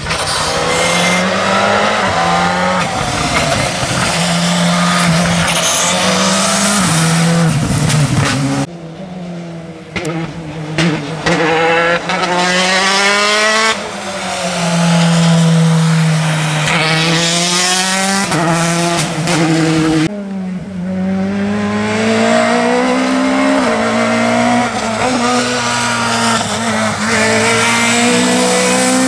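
Three rally cars in turn, a Škoda Fabia R5, a Peugeot 208 T16, then a Peugeot 208, driven hard past on a wet tarmac stage. Their turbocharged engines climb in pitch and drop back at each gear change, over a hiss of spray from the tyres on the wet road. The sound cuts abruptly from one car to the next at about nine and twenty seconds in.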